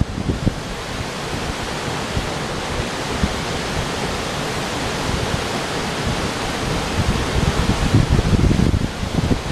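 River rapids rushing over rocks in a steady, even roar of white water. Wind buffets the microphone in uneven low gusts, stronger in the last few seconds.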